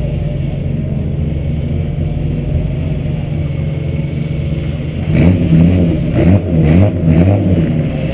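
Rear-wheel-drive Suzuki's engine idling steadily, then revved several times in quick succession about five seconds in, the pitch rising and falling with each blip, before it drops back to idle near the end.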